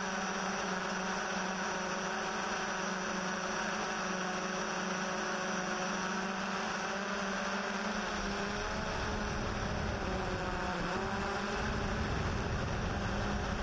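Yuneec Typhoon H hexacopter drone's rotors humming steadily with a pitched whine. From about eight seconds in a low rumble joins and the pitch wavers as the motors change speed.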